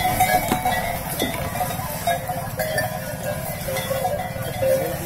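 Bells on a yoked pair of draught oxen clanking unevenly as they pull a wooden cart past, over a steady low rumble.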